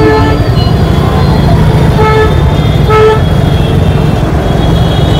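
Honking in jammed city traffic: several short vehicle horn beeps, at the start, about two seconds in and about three seconds in, over a steady low rumble of idling motorcycle and car engines.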